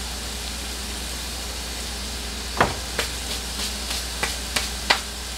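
Chopped red onions and green bell peppers sizzling steadily in oil in a frying pan. From about halfway, a string of sharp clicks and knocks from the wooden spoon stirring against the pan.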